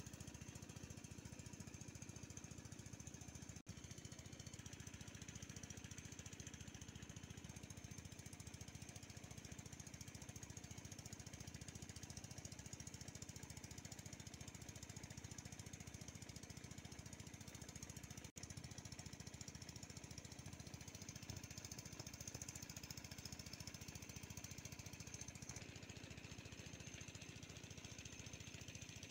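Honeybees buzzing around apple blossoms: a faint, steady low hum that breaks off briefly twice.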